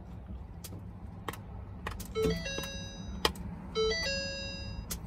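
Electronic warning chimes from the Mustang's instrument cluster with the ignition on: a run of short beeps at several pitches, with sharp clicks in between. Under them runs a steady low hum from the fuel pumps priming the empty fuel lines before a start attempt.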